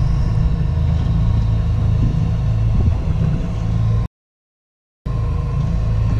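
Boat's outboard motor running steadily at trolling speed, a low drone mixed with wind and water noise. It cuts out completely for about a second a little past the middle, then resumes.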